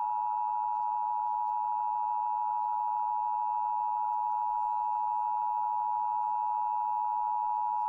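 Emergency Alert System attention signal: the steady two-tone alarm (853 and 960 Hz sounded together) announcing an EAS message, here a required monthly test. It holds level throughout and cuts off abruptly near the end.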